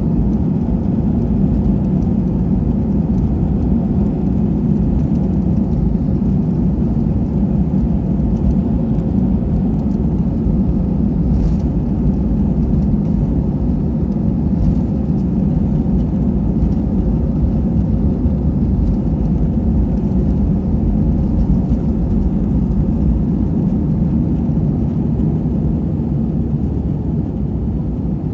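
Airbus A320-200 on its takeoff roll, heard inside the cabin from a window seat over the wing: the engines run steadily at takeoff power under a deep rumble of the wheels on the runway, with a few faint knocks about midway. The aircraft rotates to lift off near the end.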